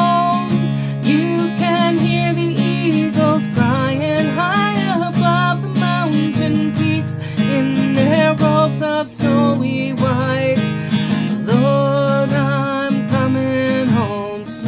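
A woman singing with her own acoustic guitar accompaniment, the guitar capoed, in long held and gliding vocal lines over the chords.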